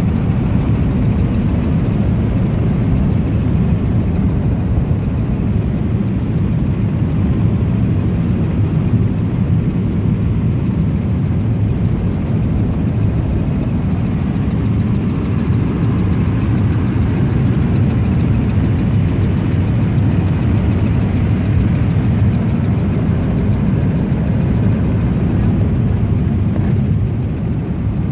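Helicopter in flight heard from inside the cabin: a loud, steady low-pitched rumble of rotor and engine.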